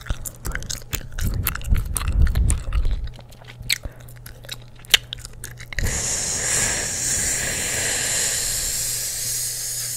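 Gum chewing right up against the microphone: wet clicks and soft smacks. About six seconds in, a steady hiss starts and holds evenly for about four seconds.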